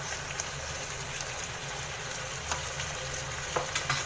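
Chicken pieces sizzling in a pan as a lump of butter melts into the cooking juices, with a few sharp crackles and pops, mostly near the end, over a steady low hum.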